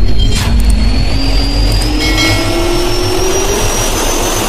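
Jet engine spooling up, as an intro sound effect: a slowly rising whine over a steady low rumble, with a brief whoosh just after the start.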